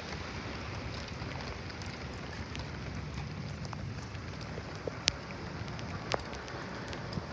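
Rain falling steadily in an even hiss, with a couple of sharp single clicks about five and six seconds in.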